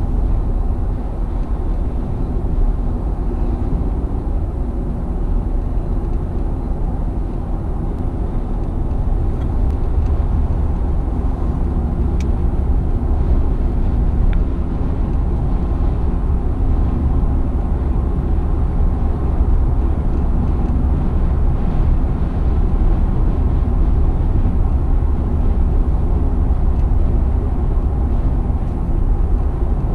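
Car interior noise at highway speed: steady low rumble of the engine, tyres and road.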